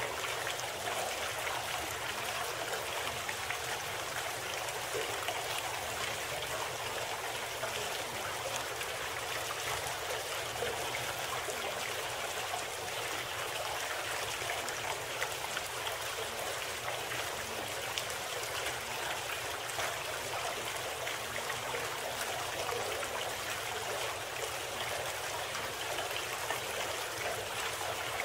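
Steady running-water sound like a trickling stream, an even rushing hiss that does not change.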